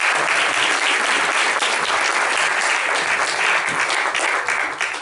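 Audience applauding: dense, steady clapping from a seated crowd that dies away at the very end.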